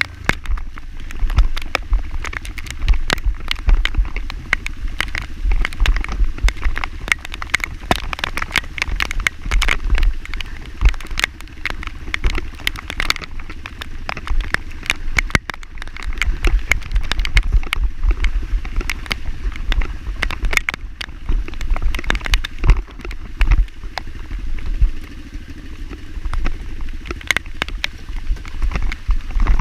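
Single-cylinder four-stroke trail motorcycle running while being ridden, with a heavy, uneven low rumble and many sharp clicks throughout.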